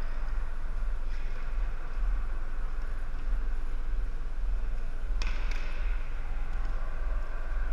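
Floor hockey game in a gym, heard at a distance: a steady low hum under faint scuffing and clacking of sticks and ball on the wooden floor, with one sharper knock about five seconds in.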